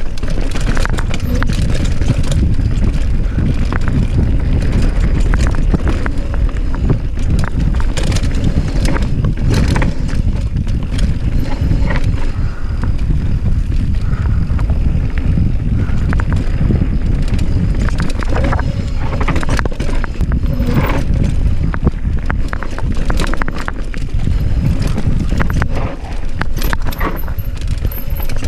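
Mountain bike descending a rough trail: a continuous low rumble of wind on the microphone, with the tyres, chain and frame rattling and knocking over rocks and roots.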